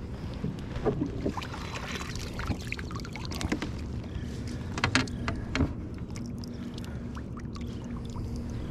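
Water splashing beside a fishing kayak as a hooked bass thrashes at the surface and is scooped into a landing net, with scattered sharp knocks and clicks of tackle against the plastic hull.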